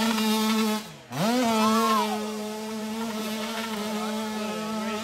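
Small two-stroke engine of a youth Kawasaki dirt bike buzzing at high revs as it climbs a dirt hill. About a second in, the sound dips and drops out briefly, then comes back with the revs wavering up and down.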